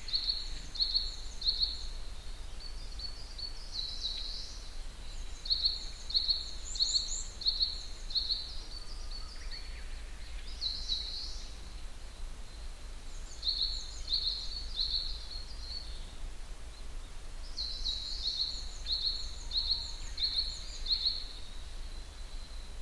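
Wild songbird singing phrases of short, high, repeated notes, about three or four a second, with a pause of a second or two between phrases, over a steady low rumble.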